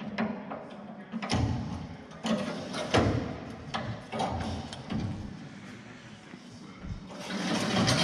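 Steel sickle knife of a combine header being pushed by hand into the cutter bar, sliding through the guards with irregular metal scraping and clanks every second or so.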